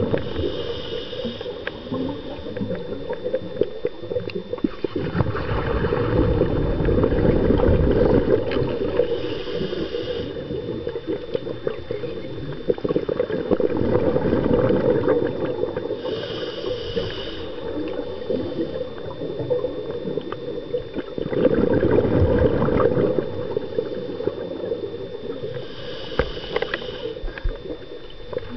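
Scuba diver breathing underwater through a regulator: a short hiss on each inhale, then a longer gurgling rush of exhaled bubbles, in a slow steady rhythm of about one breath every eight seconds.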